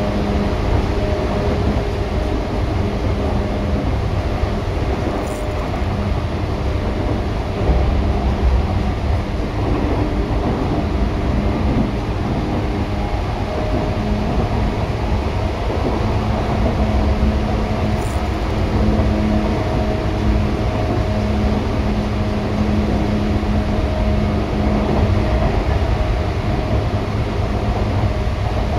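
8500 series electric train running at speed, heard from inside the car: a steady rumble from the wheels and running gear, with the hum of its Hitachi traction motors. The hum grows stronger about halfway through.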